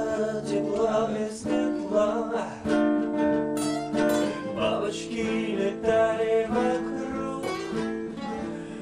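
Two acoustic guitars playing together: strummed chords mixed with sustained, ringing picked notes.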